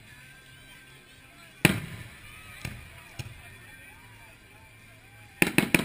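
Fireworks shells bursting overhead. One loud bang comes about a second and a half in, a couple of lighter bangs follow, and a quick cluster of four bangs comes near the end.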